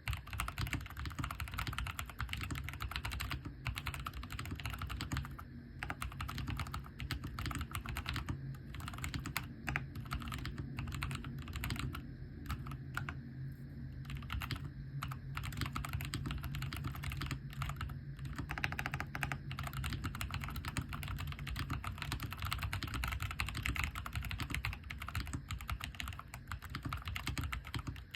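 Continuous fast typing on an AJAZZ AK680 mechanical keyboard with stock brown tactile switches: a dense run of keystroke clacks with brief pauses between bursts.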